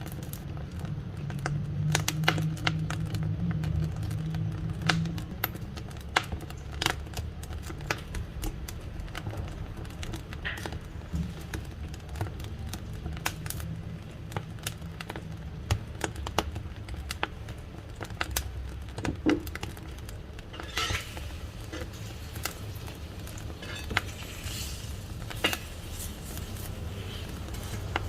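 Wood fire crackling: irregular sharp pops and snaps over a low, steady rumble of the flames.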